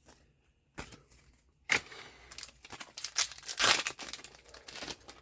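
Trading-card booster pack wrapper crinkling and tearing as it is opened: a single click, then from about two seconds in a dense run of crackling.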